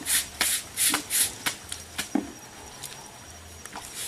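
Water splashing in a rapid series of short swishes, about five in the first second and a half, then dying down to a quieter stretch with a single brief knock.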